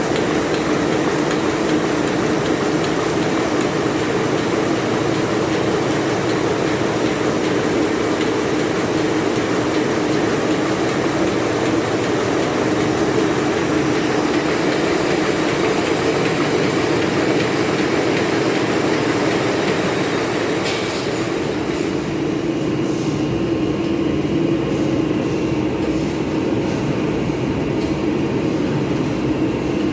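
A vehicle running steadily, a continuous rumbling drone. About two-thirds of the way through the hiss thins out and a few light clicks come in.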